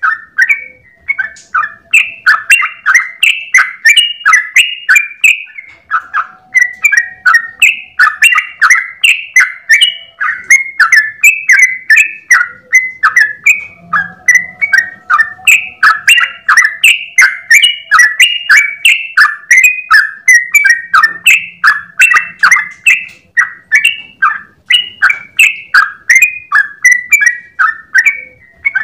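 Yellow-vented bulbul (trucukan) singing in one long unbroken rapid run: short sweeping notes at about three to four a second, with no pauses.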